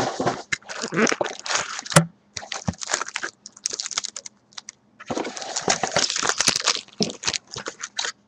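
Crinkling and crackling of foil card-pack wrappers and a cardboard box being torn open and handled, in bursts with short pauses and one sharp snap about two seconds in.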